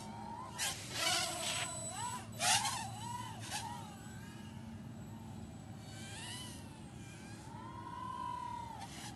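Micro quadcopter's small brushed coreless motors whining, the pitch sliding up and down as the throttle changes through acrobatic flips and rolls. There are several short rushes of noise in the first few seconds, the loudest about two and a half seconds in.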